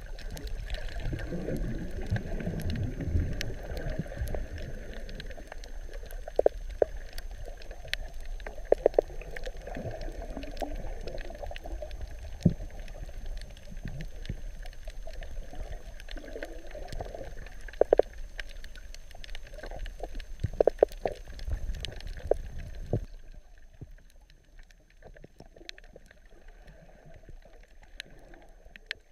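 Underwater ambience: bubbling and gurgling water with scattered sharp clicks, becoming much quieter about 23 seconds in.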